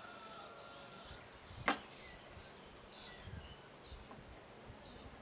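Faint chirps and call notes of small birds, with a single sharp knock about a second and a half in that is the loudest sound.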